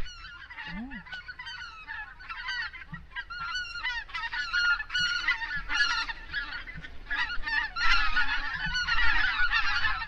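A flock of geese honking: many short, overlapping calls that grow denser and louder through the second half.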